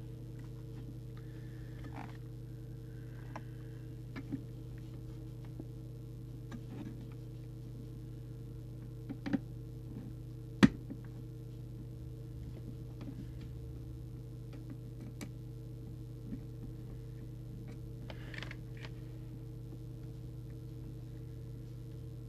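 Steady electrical hum with faint tones above it, broken by scattered small clicks from handling multimeter test leads and a clip on a CB radio's circuit board, with two sharper clicks about halfway through.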